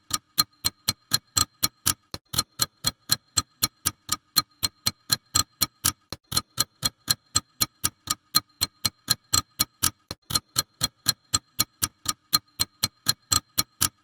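Rapid, even ticking at about five clicks a second, each with a short plucked-sounding ring, from the tick sound effect of a random winner picker. It stops abruptly at the end.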